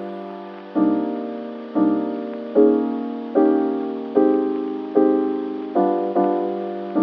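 Background music: slow piano-like chords, each struck and left to fade, about one a second.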